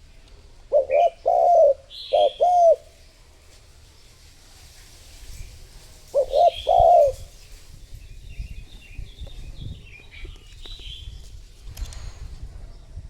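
Spotted dove cooing: a phrase of several low coos about a second in, and a shorter phrase of three coos about six seconds in. Small birds chirp faintly in the background.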